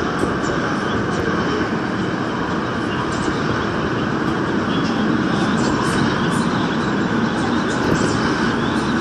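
Daejeon Metro Line 1 train running through a tunnel: a steady rumble and rush of wheels on rails, with faint scattered clicks.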